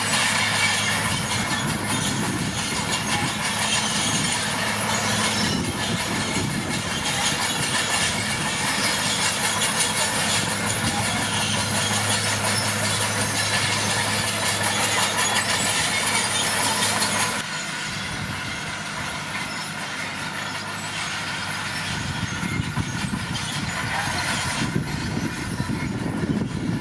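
Komatsu D41P crawler dozer's diesel engine running under work, a steady low hum with a dense rattle over it. The sound drops suddenly about two-thirds of the way through, then builds again near the end.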